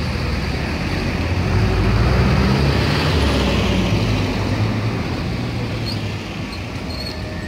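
Street traffic with a heavy motor vehicle passing: a low engine rumble swells about two seconds in and then slowly fades away.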